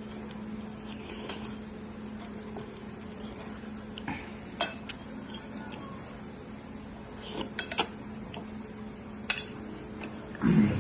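Utensil clinking against a bowl of noodles a handful of times while eating, over a steady low hum, with a louder clatter near the end.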